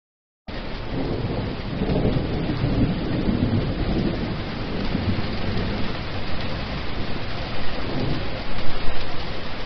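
Heavy rain pouring, starting abruptly about half a second in, over a deep rumble that swells a couple of times.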